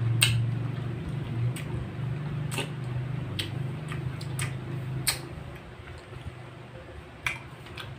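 A person chewing a red grape close to the microphone: sharp, wet mouth clicks about once a second, over a low hum that fades out about five seconds in.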